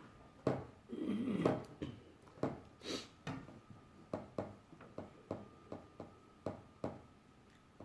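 Irregular clicks and knocks of a plastic toy housing being handled and screwed back together, with a faint steady whine underneath.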